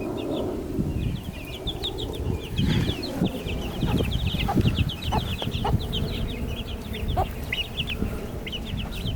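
Chicks peeping continuously in rapid, high, downward-sliding notes, with a few lower short calls from the flock.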